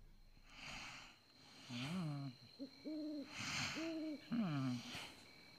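Cartoon pig snoring: breathy rasps alternate with several hooting, whistle-like tones that bend up and down in pitch.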